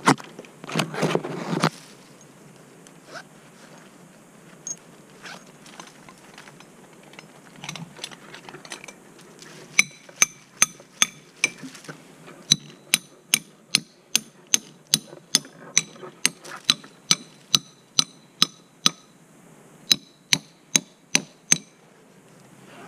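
Brushing and rustling through branches at the start, then a long even run of sharp metallic clicks with a ringing tone, about three a second, from metal tree-cabling hardware, stopping shortly before the end.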